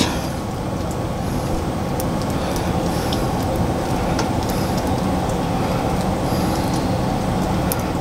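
Steady low mechanical rumble, like an engine running, with a few faint light clicks over it.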